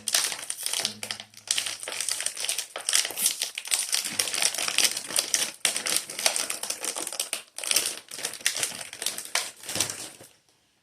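Wrapping crinkling as a pastry is handled and unwrapped: a dense, irregular run of crackles and rustles that stops abruptly about ten seconds in.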